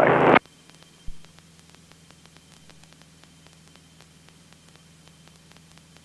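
Faint electrical hum and hiss with light crackle on the aircraft's radio and intercom audio feed, with a brief low thump about a second in. No engine sound comes through.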